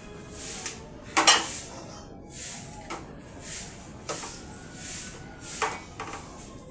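Kitchen utensils clinking and knocking against cookware, four sharp clinks with the loudest just after a second in, over a swishing hiss that swells about once a second.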